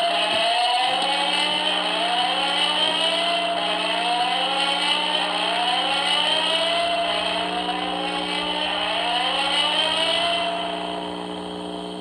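Building alarm being tested, sounding a repeated rising whoop about once every 1.2 seconds; it grows quieter near the end.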